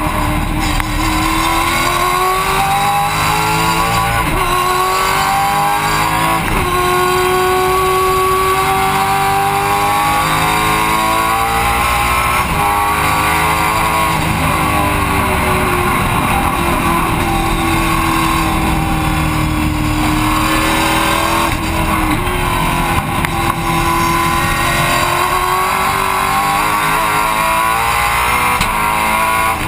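2011 Holden Commodore V8 Supercar's 5-litre V8 engine heard from inside the cockpit, running hard on a lap. Its pitch climbs through each gear and drops at the gear changes and under braking, several times over.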